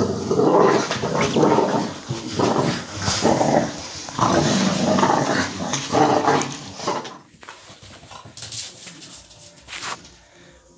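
Bulldog puppies growling in rough play, in repeated loud bursts for about seven seconds. It then goes quieter, with a couple of short knocks near the end.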